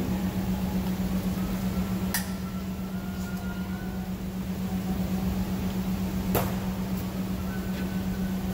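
A steady low hum, with two sharp clicks, about two and six seconds in.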